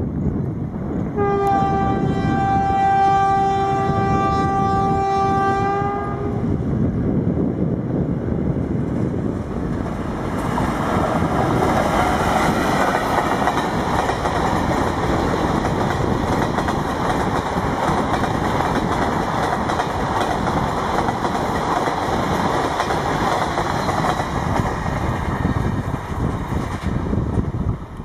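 Indian Railways WAP-4 electric locomotive's horn giving one long steady hoot of about five seconds, then the wheels of the passenger coaches running over the rails at speed as the train passes, dying away near the end.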